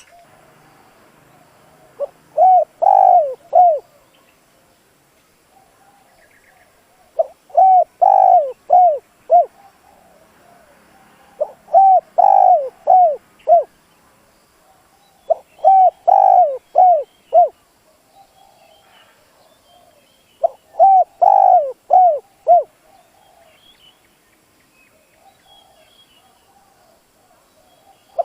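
Spotted dove cooing: five phrases of four or five short, hollow coo notes, one phrase every four to five seconds with pauses between.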